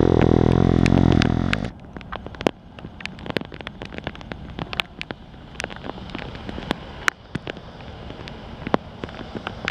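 Heavy rain, with sharp drops ticking on the microphone over a faint rumble from a freight train rolling away. A loud low drone at the start cuts off abruptly about a second and a half in.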